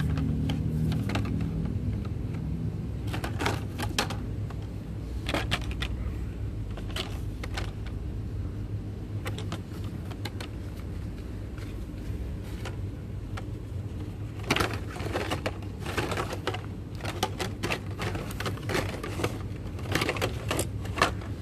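Plastic blister packs of toy cars clicking and crackling as they are handled and flipped through on a wire peg rack, in irregular clusters, over a steady low rumble.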